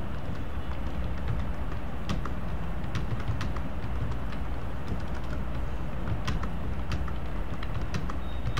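Computer keyboard keys clicking irregularly, a few strokes at a time, over a steady low background rumble. A steady high-pitched tone comes in near the end.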